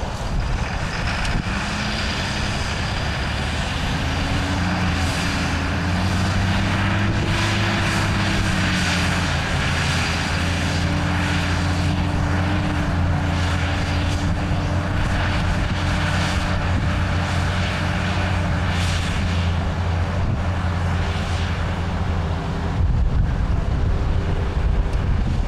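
A tractor engine running under steady load. Its pitch rises over the first few seconds and then holds steady.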